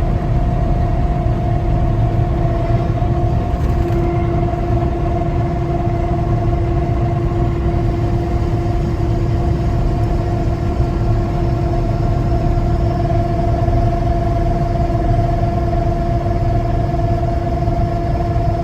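Harvest machinery running steadily: a constant heavy drone with two steady hums, the lower of which grows stronger about four seconds in.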